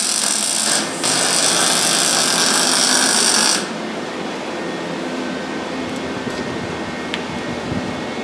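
Welding on the car's wheel-well sheet metal: a loud, hissing arc for about three and a half seconds, with a short break about a second in. It stops, leaving a quieter, steady noise.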